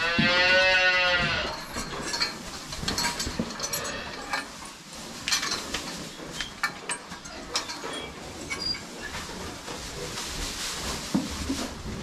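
A cow in a stall gives one high bawling moo, about a second and a half long, at the start. After it comes the dry rustle of hay being pulled apart by hand, with scattered light knocks and clinks.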